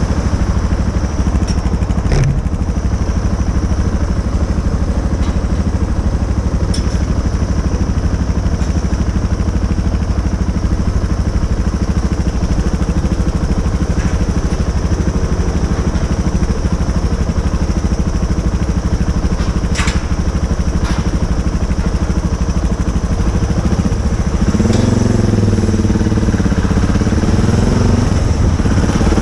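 Motorcycle engine running steadily. About 25 seconds in, its pitch rises and dips as the throttle changes, and it grows slightly louder.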